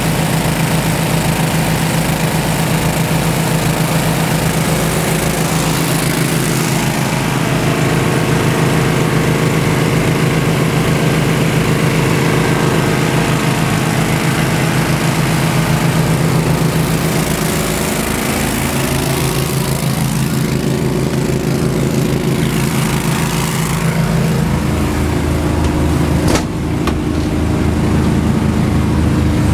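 Engine running steadily, its note shifting a couple of times in the second half, with a single short knock near the end.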